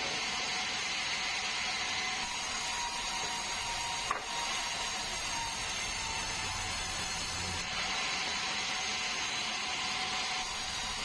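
Sawmill saw cutting through a bengkirai hardwood log, a steady high-pitched running noise, with one sharp click about four seconds in.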